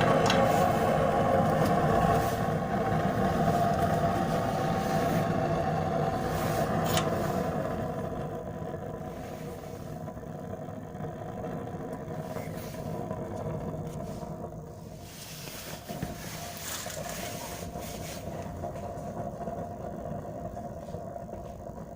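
Homemade waste-oil furnace burning just after being lit with a little petrol: a rushing flame noise that is loudest at first and eases off over the first eight seconds or so, with a few sharp cracks. The furnace is still cold and warming up before it settles into its running mode.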